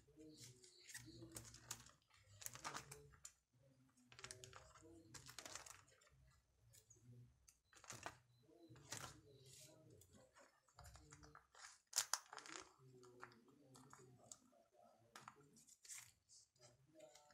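Faint handling noise of photocards and a plastic binder: scattered rustles, taps and clicks as cards are picked up, laid down and slid into clear A5 binder sleeves, with one sharper click about twelve seconds in.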